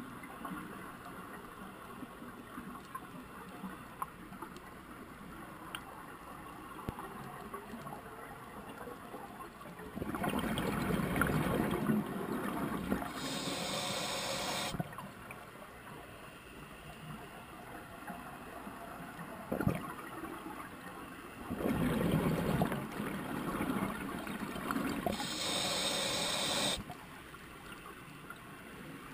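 A scuba diver breathing through a regulator, heard underwater through the camera housing: a gurgling rush of exhaled bubbles that runs straight into a short hiss from the regulator on the next inhale. This happens twice, about 10 s and about 22 s in, with long quiet pauses between breaths.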